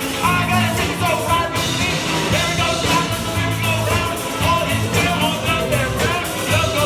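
Live rock band playing with a lead singer: drums, a steady bass line and guitar under the vocals.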